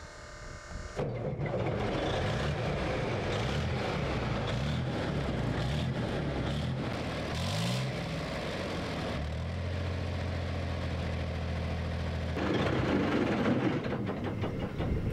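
The diesel engine of a captured BMP infantry fighting vehicle starts about a second in. It revs up and down unevenly, settles into a steady idle, and rises again near the end. The engine is new, with 26 engine hours on it.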